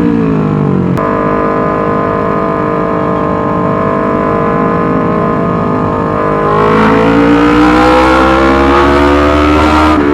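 Yamaha R25 parallel-twin engine running loud through a Racefit Slash aftermarket exhaust: the note drops in the first second, holds steady, then climbs again over the last few seconds.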